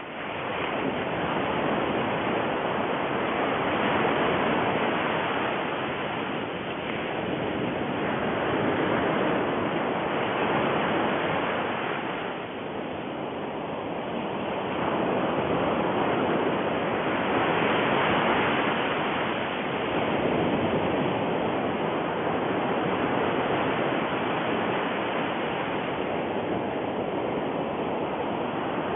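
A steady rushing noise, like surf or strong moving air, that swells and eases every few seconds.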